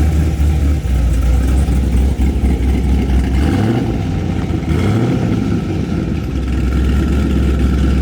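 A 2010 Camaro SS's 6.2-litre V8 running at low speed with a steady low rumble, its pitch rising briefly twice around the middle as it is given a little throttle.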